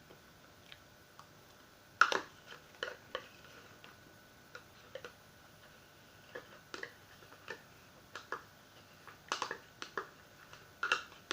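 A spoon clicking and scraping against a small dessert pot as the last of the mousse is scooped out, in irregular short taps with a few louder knocks.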